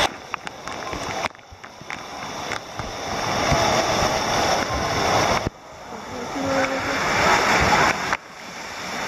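Water jets from splash-pad play fountains spraying and splattering onto the tiled floor, a steady rushing hiss that cuts off abruptly about a second in, again after five seconds, and once more near the end, each time building back up.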